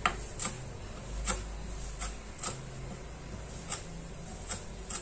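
Kitchen knife chopping fresh parsley on a wooden cutting board: sharp taps of the blade on the board, unevenly spaced, about one or two a second.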